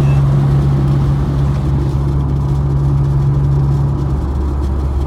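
Car cruising on a highway, heard from inside the cabin: a steady low drone of engine and road noise. The hum lets up briefly a little after four seconds in.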